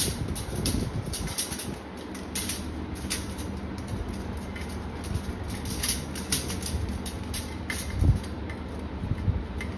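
Stainless steel dish rack parts clicking and clinking as a hook plate is held against an upright and a screw is fitted by hand, with scattered light metallic ticks over a low steady rumble and a louder thump about eight seconds in.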